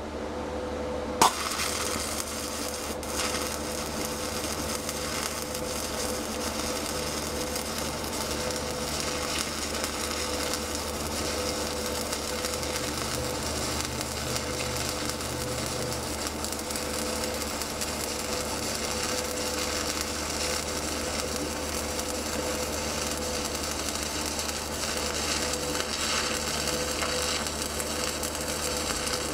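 Stick-welding arc with a 7018 low-hydrogen electrode: a sharp strike about a second in, then the steady crackle and sizzle of the arc as the bead is run.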